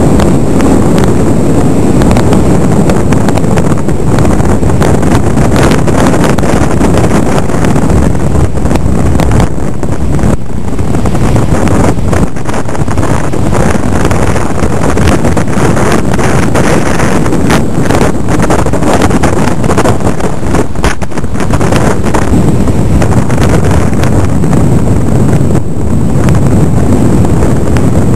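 Strong wind buffeting the microphone: a loud, continuous rumbling noise with frequent gusty crackles.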